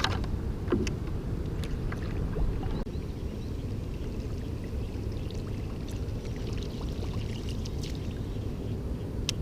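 Water splashing and lapping against a small paddle craft, with a few short knocks and splashes over a steady low rumble.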